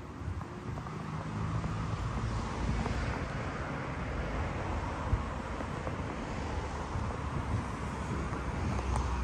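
Wind buffeting the microphone, an uneven low rumble, over a steady outdoor hiss.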